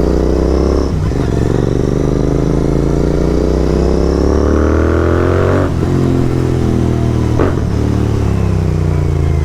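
Royal Enfield Continental GT 650's parallel-twin engine through Red Rooster aftermarket exhausts, pulling up through the revs on the move. The pitch climbs steadily to a gear change near six seconds in, after an earlier shift about a second in, then settles lower and steadier.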